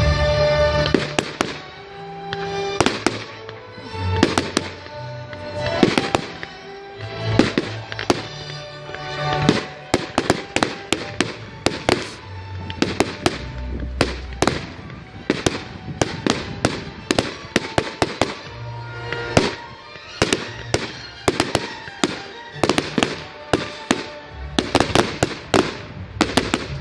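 Fireworks going off in a rapid series of sharp bangs and crackles that come thicker and faster from about ten seconds in, with music playing underneath.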